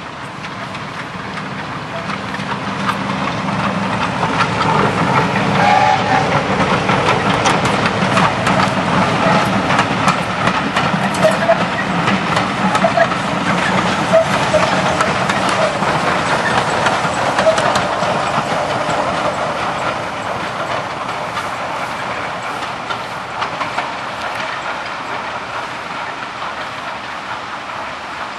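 Class 03 diesel shunter hauling a short train of coaches past, its engine running and the wheels clattering over the rail joints. The sound builds to a peak about four seconds in, holds with a few brief high squeaks from the wheels, then fades slowly as the train draws away.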